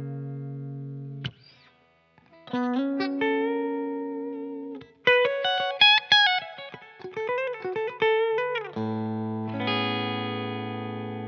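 Umeda UST QM24 super-strat electric guitar played with a clean tone. A ringing chord is cut off about a second in, and after a short pause come struck chords and a quick run of picked notes. It ends on a chord left to ring and fade.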